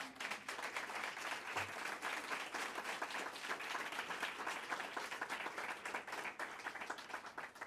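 An audience applauding, the clapping beginning to thin out near the end.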